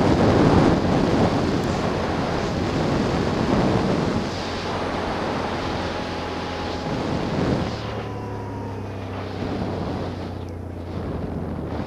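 Wind buffeting the microphone of a helmet-mounted camera on a moving quad bike (ATV), with the quad's engine running underneath. About eight seconds in the wind noise eases and the engine's steady hum comes through more clearly.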